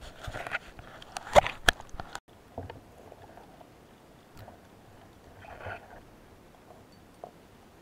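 Underwater handling noise: sharp clicks and knocks of a speargun and a fish stringer being worked by hand, bunched in the first two seconds and loudest about a second and a half in, then a few fainter clicks and a brief soft rush of water near the middle.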